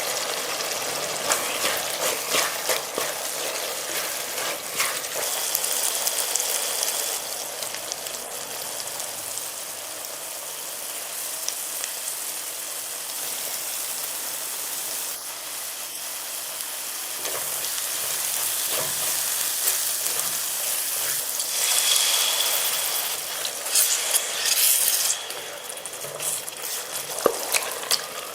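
Food frying and sizzling in oil in a pan while a spatula stirs it, with scrapes and clicks against the pan. The sizzle surges louder twice, about three-quarters of the way through.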